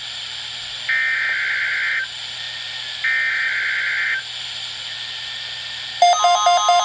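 The last two bursts of a NOAA Weather Radio SAME digital header for a Required Weekly Test, heard over radio static: screechy data tones about a second long, two seconds apart. About six seconds in, a loud warbling electronic alert tone starts.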